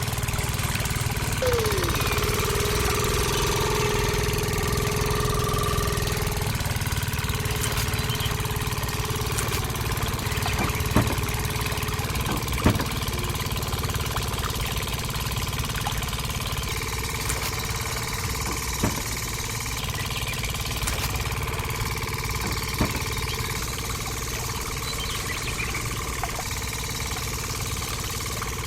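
Engine running steadily at an idle-like pace, with a faint steady whine above it and a few sharp clicks.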